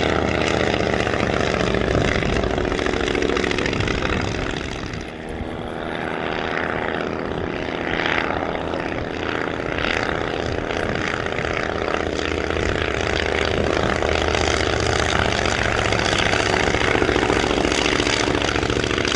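Five-cylinder Genet radial engine of a vintage light aircraft running in flight, a steady propeller drone that dips briefly about five seconds in and then comes back up.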